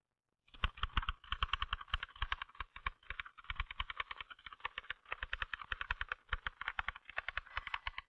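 L.C. Smith manual typewriter being typed on at speed: a rapid, steady stream of key and typebar strikes starting about half a second in.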